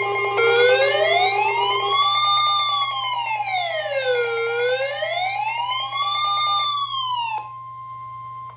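Electronic alert tones between two marine warnings: a wailing siren tone sweeps slowly up and down about twice over a chord of steady alarm tones, then cuts off about seven seconds in, leaving a single steady tone near 1 kHz.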